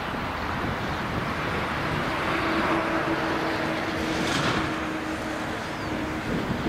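Distant Boeing 787-9 jet engines running on the runway: a steady rushing noise with a faint hum through the middle and a brief swell about four seconds in.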